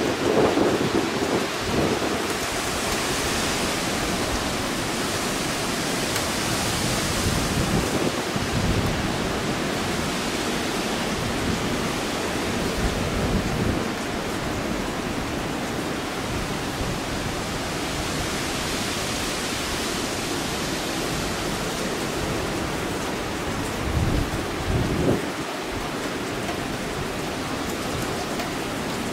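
Heavy, steady rain from Hurricane Florence pouring down, an even dense hiss, with a couple of brief low rumbles: one right at the start and one about three-quarters of the way through.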